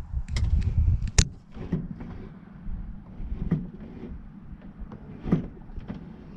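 Clicks and soft knocks from the cockpit controls of a 1959 Cessna 172 being worked by hand before engine start, with the engine not yet running. There is a sharp click about a second in, then a soft knock every couple of seconds, and a low rumble during the first second.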